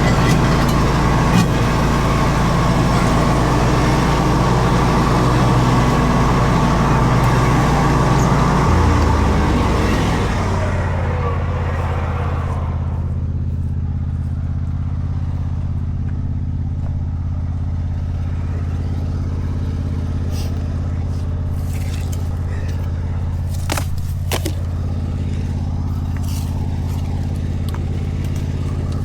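Zero-turn mower engine running hard with a wide rushing noise over it. About ten seconds in the throttle comes down and the rushing noise fades away, leaving the engine running steadily on a lower, even note.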